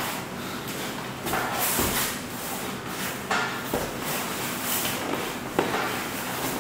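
Scuffling and rustling of a fight in progress, broken by several sudden thuds of bodies or blows, the sharpest a little over five seconds in.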